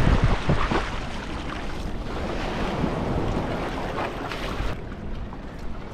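Small sea waves washing up onto the sand and against the rocks, loudest in about the first second and swelling again around four seconds in, with wind rumbling on the microphone.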